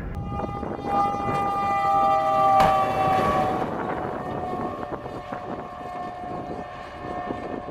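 Locomotive horn sounding a steady multi-tone chord, dropping slightly in pitch about two and a half seconds in and fading after about three and a half seconds, over the rumble of the passing train.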